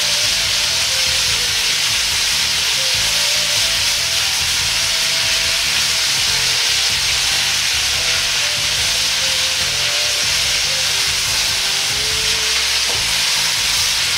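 Thin-sliced beef sizzling steadily in oil in a wok while being spread and turned with chopsticks.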